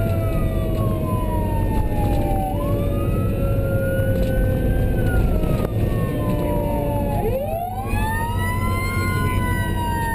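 Emergency vehicle sirens wailing while driving, over the rumble of the vehicle's engine and road noise. One siren rises and falls in slow cycles; a second, lower tone falls slowly, then sweeps sharply back up about seven seconds in.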